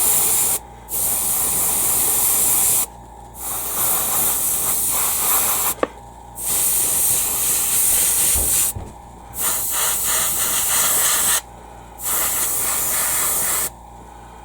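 Airbrush spraying paint in bursts of about two seconds with short pauses between them, stopping shortly before the end.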